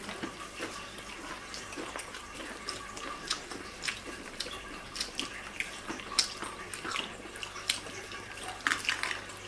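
Eating sounds: people chewing and biting into fried chicken, with irregular short crunches and clicks.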